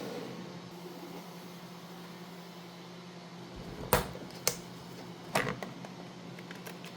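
A few sharp clicks and taps of tools handling a small copper coin during cleaning: one about four seconds in, another half a second later, a third about a second after that, then fainter ticks, over a faint steady hum.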